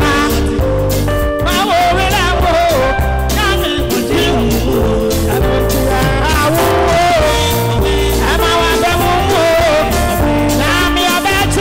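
Amplified gospel music: a man sings a wavering, ornamented melody into a microphone over steady held chords and a heavy bass beat.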